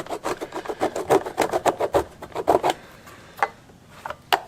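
Hacksaw cutting through the car's rear trim piece in quick back-and-forth rasping strokes, trimming a notch for the tow hitch. The sawing stops about three seconds in, followed by a couple of light knocks.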